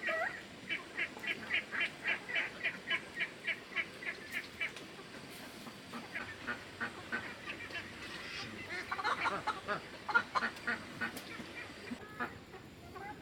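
Ducks quacking: a fast, even run of short quacks at about four a second, then a second, more scattered bout of quacking a few seconds later.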